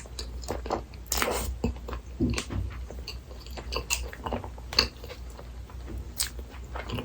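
A person eating a Burger King Texas Chili Whopper set meal close to the microphone: bites and wet chewing, with many short crisp clicks and smacks and a louder chewing stretch about a second in.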